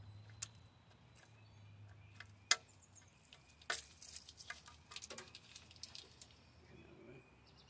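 Metal tools and engine parts clinking and clanking as they are handled: one sharp clank about two and a half seconds in, then a run of rattling metallic clicks.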